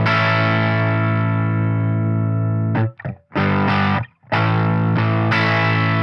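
Electric guitar played through a Fender Champion 20 amp on its Blackface '65 Deluxe voice: chords struck and left to ring. About three seconds in the ringing is cut off by a few short, choked stabs and brief gaps, then fresh chords are struck and ring on.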